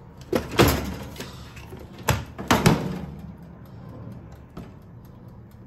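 Several knocks as the glass door of a countertop toaster oven is pushed and bumped shut, a pair about half a second in and a few more about two seconds in. The door does not latch on its own and has to be held closed.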